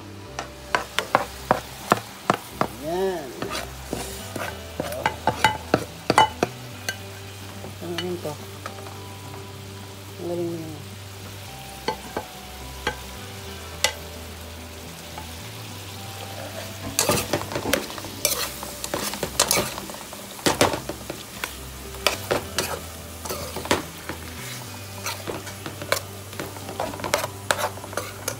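A metal spoon stirring and scraping onion, tomato, ginger and fried pork pieces in a sizzling pan, with many sharp clicks of the spoon against the pan. There are a few short squeaky scrapes in the first half and busier clattering in the second half.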